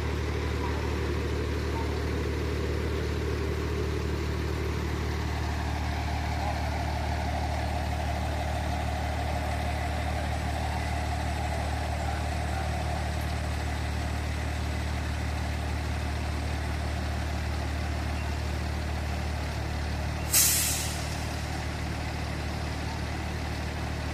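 Fire engine idling steadily, with one short, loud hiss of its air brakes near the end.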